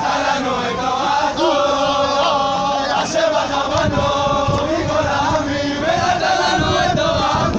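A group of men singing a chant together in a ring dance, many voices in unison with a steady, repetitive melody.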